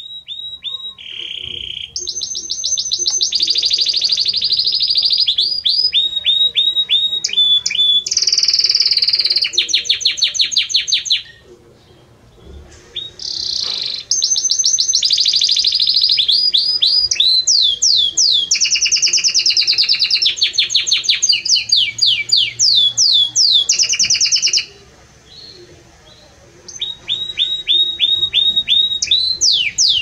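Belgian canary singing loud, long phrases of rapid repeated trills and rolls, breaking off twice for a few seconds before starting again.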